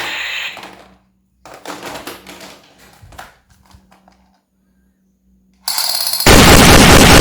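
Plastic clicks and rattles of a toy gun being handled, after a short fade of background music. Near the end a very loud, rapid machine-gun-like noise starts suddenly.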